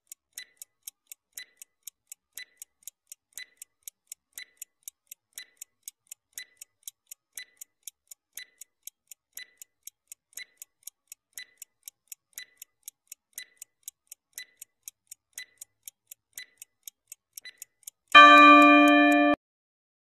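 Countdown-timer clock ticking sound effect, a steady tick-tock at about two ticks a second. Near the end a loud alarm tone with several pitches together sounds for about a second, signalling that the time is up.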